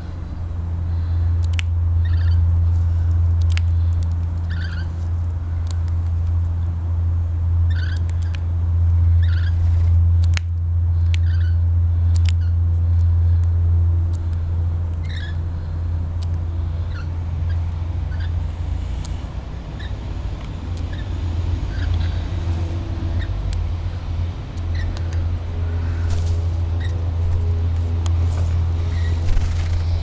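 A steady low hum, the loudest sound, runs under short high bird chirps every second or two and occasional sharp taps of an Australian magpie's beak pecking sunflower seeds off a stone step.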